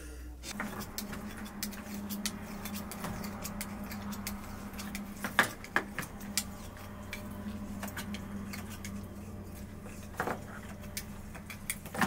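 Raw meat being handled and cut with knives over a plastic basin: soft wet handling and scattered small clicks, with sharper clicks about five and a half seconds in and again near ten seconds, over a steady low hum.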